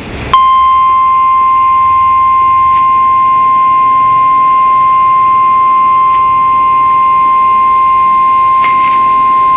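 Weather Radio Canada's 1050 Hz warning alarm tone: one loud, steady, unbroken beep starting about a third of a second in. It is sounded in the monthly test to switch on alert-equipped weather radios.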